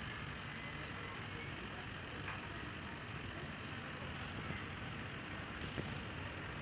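Compressor used as a vacuum pump running steadily, pulling a car's emptied R134a air-conditioning lines down to vacuum.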